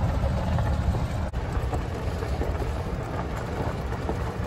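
Wind buffeting the microphone on a moving golf cart, a steady low rumble with the cart's running noise underneath.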